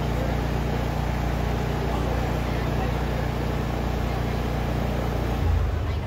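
Walt Disney World Railroad steam train rolling along, heard from aboard: a steady rumble with a low hum, and a brief low thump near the end after which the rumble eases.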